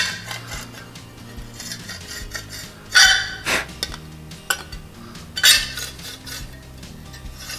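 A thin metal tool scraping and clicking against the drilled hole in a white plastic jar lid to clean up its edge. There are a few short scrapes, the loudest about three seconds in and another about five and a half seconds in.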